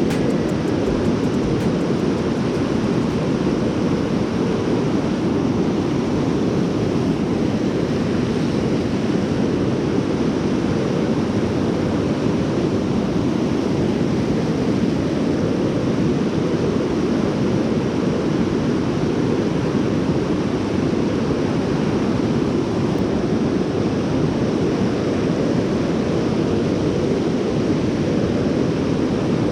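Steady rush of a creek running high and fast after heavy rain.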